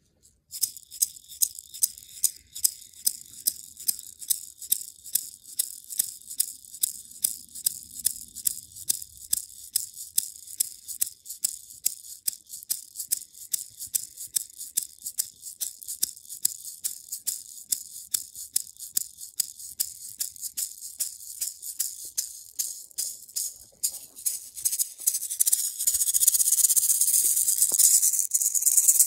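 Hand-held rattle shaken in a steady beat, about three shakes a second. Near the end it turns to a fast, louder continuous shaking.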